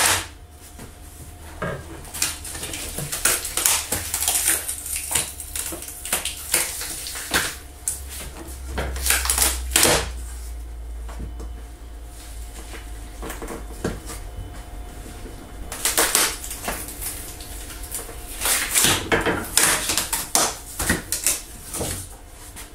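Thin wooden cutouts and scrap being pulled off a CNC router's bed by hand and set down: repeated light wooden clacks and knocks with some scraping, as pieces held down to the board are pried loose.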